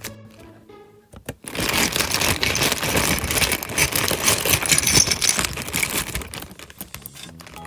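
Dense, rapid clicking and rattling of small hard plastic toy pieces being handled, starting about a second and a half in, running for about five seconds, then fading.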